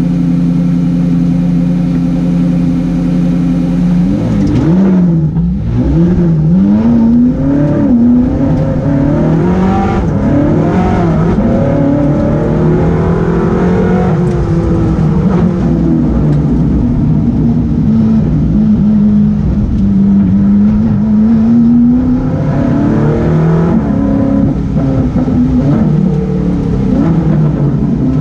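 Ferrari race car's engine heard from inside the cockpit. It holds steady revs for about four seconds, then launches and pulls hard through the gears, the revs climbing and dropping back again and again with each shift and lift.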